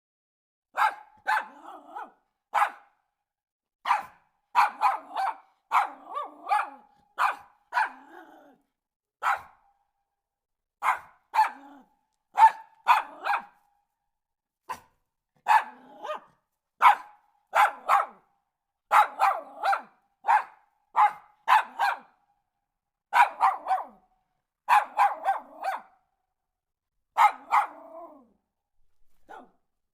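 Dog barking over and over in short sharp barks, some single and some in quick runs of two to four, with brief pauses between.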